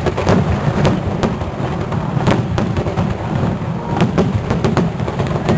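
Fireworks display going off: rapid, irregular bangs and cracks over a continuous low rumble of detonations.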